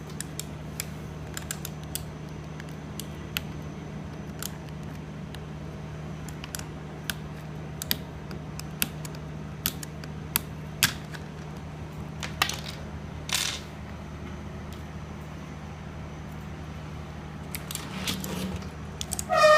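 Irregular small clicks and taps of mechanical keyboard parts being handled: switches, plastic housings and small tools knocking on the board, with one short scrape about two-thirds of the way through, over a steady low hum.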